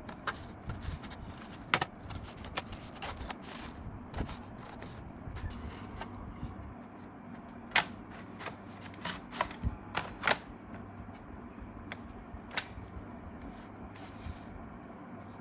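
Irregular sharp clicks and taps of hard plastic and metal parts being handled on a laptop, over a steady low hum; a few louder clicks stand out.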